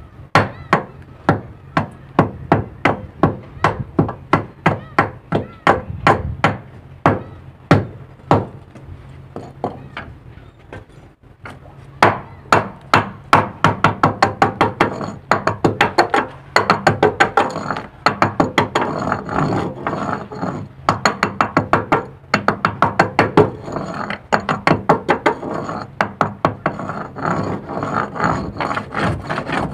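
Hand hammer striking repeatedly in a steady rhythm, about two blows a second, quickening to about four a second after roughly twelve seconds, the later blows ringing thinly, with two short pauses.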